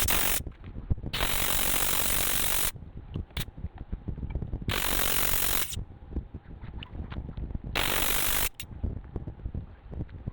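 Pneumatic grease gun firing in three bursts, each a rapid mechanical clatter with a rush of air, pumping grease into new ball joints. Small clicks and handling knocks come between the bursts.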